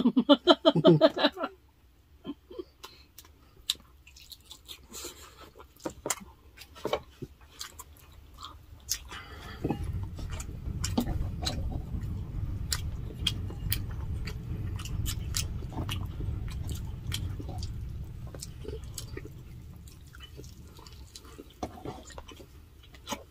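Close-miked chewing of grilled chicken and rice, with many small wet mouth clicks and lip smacks. A low, muffled rumble runs for about ten seconds in the middle. A brief spoken word comes at the very start.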